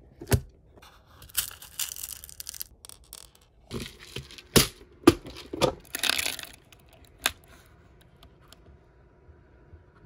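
Sharp clicks and rustling from handling a clear plastic compartment box of stone beads: plastic knocking and beads rattling as a hand picks through the compartments.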